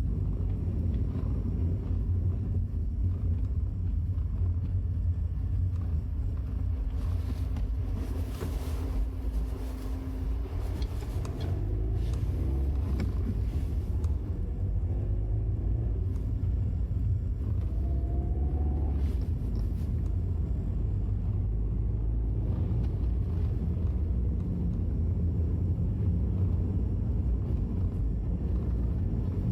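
Peugeot 308 1.6 HDi DV6FC diesel car under way, heard from inside the cabin: a steady low rumble of the engine together with tyre and road noise.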